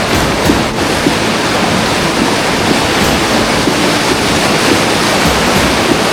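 Rushing river whitewater: a steady, loud, even noise.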